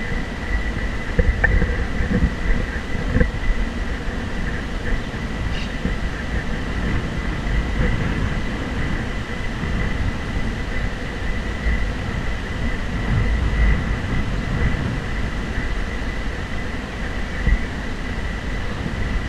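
Wind buffeting an action-camera microphone outdoors, an uneven low rumble that swells and dips, with a thin steady high whine under it.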